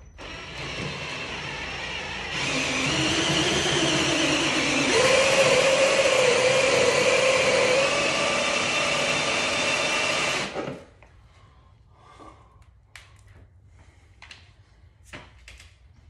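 Handheld electric power tool running for about ten seconds, getting louder a couple of seconds in and wavering in pitch as it works, then shutting off. A few light clicks and knocks follow.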